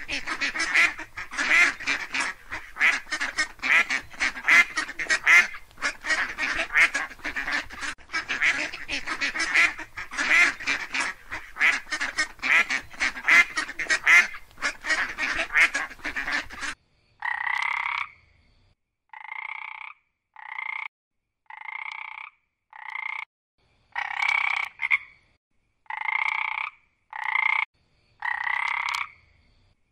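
Animal calls: a dense, continuous chorus of overlapping calls for a little over half the time, then after an abrupt cut, single short calls repeated roughly once a second.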